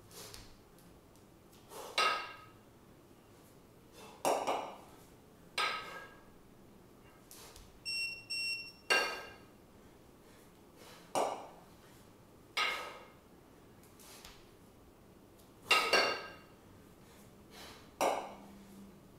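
Two 20 kg kettlebells clanking against each other during long-cycle clean-and-jerk reps: a sharp metallic knock with a short ringing about every one to three seconds. Two short high beeps about eight seconds in.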